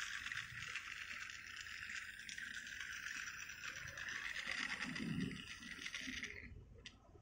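Plastic toy train cars knocking softly as they are set onto a plastic track, under a steady high hiss that cuts off suddenly about six seconds in.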